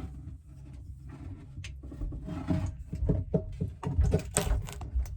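Irregular knocking and clattering over a low rumble, getting busier and louder about two seconds in.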